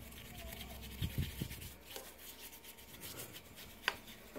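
Paintbrush wet with petrol scrubbing over the oily cylinder head of a Suzuki Thunder's air-cooled engine: a run of quick, scratchy bristle strokes on metal. There is one sharp tap about four seconds in.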